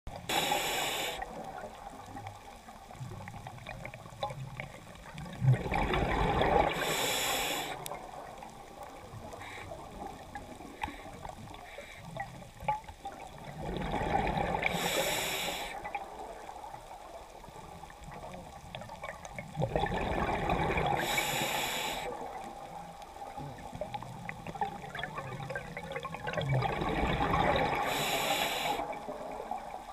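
Scuba diver breathing through a regulator underwater in slow cycles about seven seconds apart. Four times, a gush of exhaled bubbles rises and fades, each with a short hiss.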